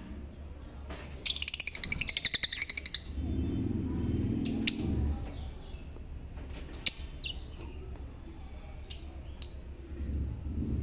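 Pet lovebirds calling: a loud, rapid chattering trill about a second in, then scattered short, sharp chirps. A low rumble is heard in the middle.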